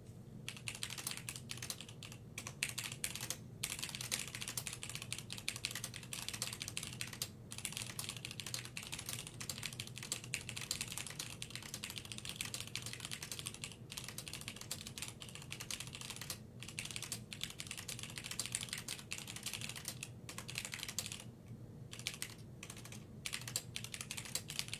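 Typing on a Cherry G80-1800HAD mechanical keyboard with Cherry MX Black linear switches and original Cherry double-shot keycaps: a fast, continuous patter of keystrokes broken now and then by short pauses.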